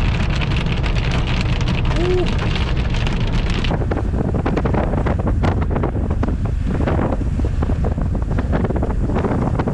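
Hiss of a car moving on a wet road, with rain ticking on the windshield. About four seconds in this cuts off suddenly, and strong wind buffets the microphone as a steady low rumble with gusts.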